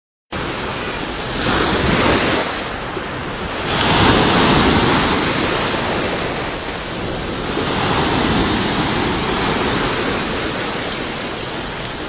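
Heavy sea surf: big waves breaking and crashing in a constant rush of white water. It swells louder three times as waves break.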